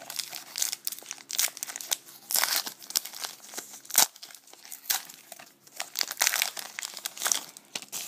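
Plastic trading-card pack wrapper crinkling and tearing as it is opened, in irregular rustles, with one sharp snap about four seconds in.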